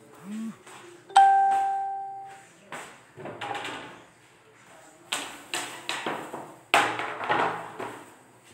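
A single bell-like ding about a second in that rings out for about a second, followed by a run of clattering knocks as a wire cooling rack is lifted off the table and a metal serving tray is set down.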